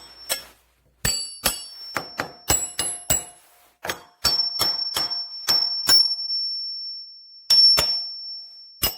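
Steel combination wrenches clinking and knocking against each other: a quick run of sharp metallic strikes, several leaving a high ringing tone that lingers in the second half.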